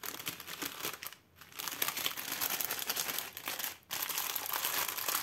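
Small zip-lock plastic bags of diamond-painting drills crinkling as they are handled and stacked together, with short pauses about a second in and again near four seconds.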